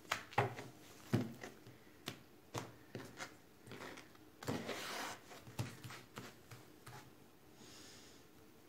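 A tarot deck being shuffled and handled, then spread across a wooden tabletop: a string of light card clicks and taps, with a longer sliding swish about halfway through.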